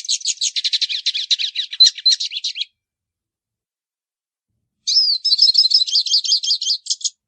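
Hooded siskin (pintassilgo, 'baianinho' song style) singing a fast, high twittering song: a long phrase that stops after about two and a half seconds, then a second phrase about two seconds later.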